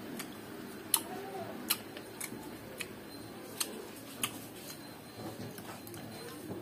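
Man chewing and eating fresh lemon: sharp, irregular mouth clicks and lip smacks, roughly one every half second to second, over a faint steady room hum.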